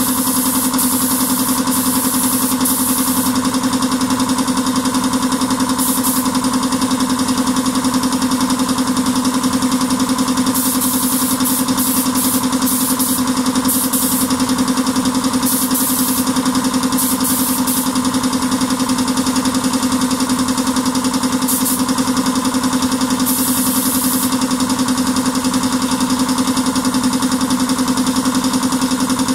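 Steady machine hum, with short bursts of hiss from a gravity-feed spray gun laying down clear coat, several times over.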